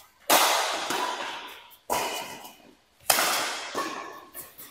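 Badminton rackets striking a shuttlecock in a rally: three sharp hits, about a second and a half apart. Each one rings on briefly in a reverberant metal-walled hall.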